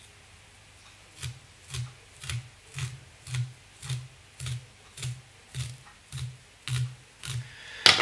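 A Velcro brush raked repeatedly through the dubbing on a streamer fly's hook to pull the fibres out: about twelve even strokes, roughly two a second, starting about a second in. A single sharp click, the loudest sound, comes just before the end.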